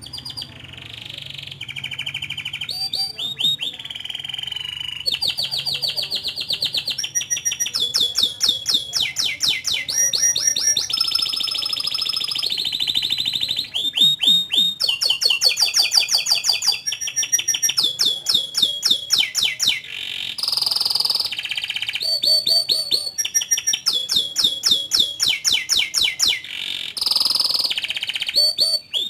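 Domestic canary singing a long, unbroken song of fast trills and rolled chirping phrases, each phrase lasting a second or two before it switches to the next.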